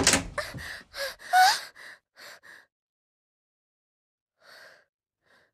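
A woman gasping and sobbing in shock, a quick run of short, sharp breaths with cries in the first two and a half seconds, the loudest about a second and a half in. A low thud sits under the start. After a pause, two faint breaths come near the end.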